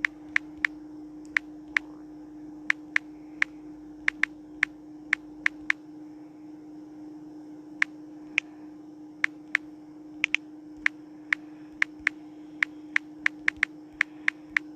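Typing on a phone's touchscreen keyboard: short sharp key clicks at an uneven pace, a few a second with short pauses, over a steady low hum.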